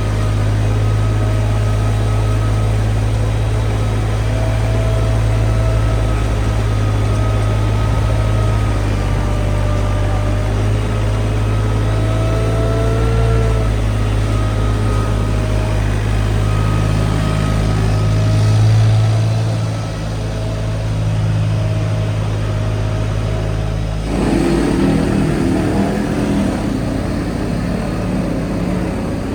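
Machine engine running steadily, with a low hum and a wavering whine above it; the sound changes abruptly about 24 seconds in.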